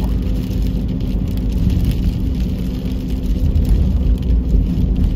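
Car driving along a snow-covered road, heard from inside the cabin: a steady low rumble of engine and tyres.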